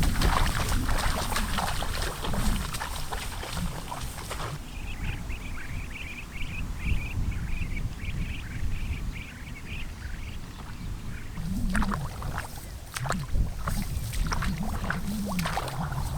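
Water sloshing and splashing, as of someone wading through a flooded rice field, over a low rumble. From about five to ten seconds in, a quick run of short, high animal calls rises over it, and more splashes and knocks come near the end.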